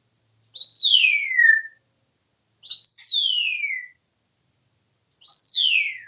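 African grey parrot whistling three times, about two seconds apart. Each whistle rises quickly, then slides down in a long falling glide.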